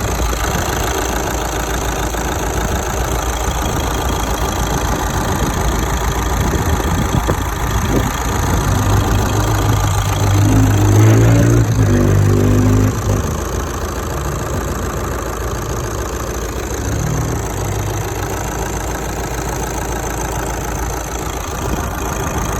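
Audi A4 B8 2.0 TDI diesel engine idling steadily, with a brief rise in engine speed about halfway through before it settles back to idle.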